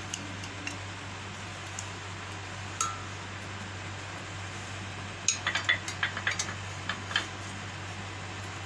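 Light clinks and knocks of glass and kitchen utensils against a glass blender jar: one about three seconds in, then a quick cluster of about a dozen between five and seven seconds in, over a steady low hum.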